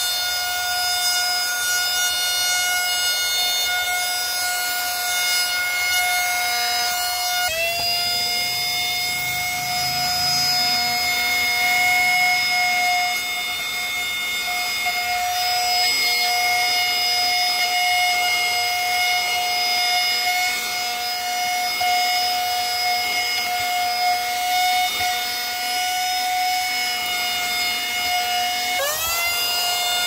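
Autoommo cordless handheld vacuum's 70-watt motor running with a steady high whine. It spins up from a lower pitch about seven seconds in and again near the end as it is switched on.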